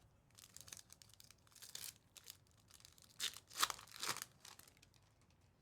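Soft rustling and scraping of trading cards and a foil pack wrapper being handled, with a few louder strokes in the middle.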